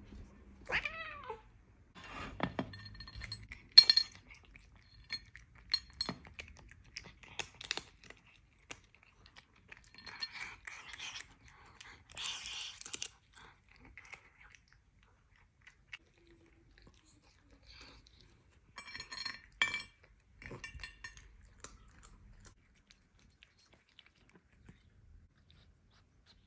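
Bengal cat meowing once about a second in, its pitch falling. It then eats small pieces of food off a plate, with scattered chewing and licking noises and sharp clicks.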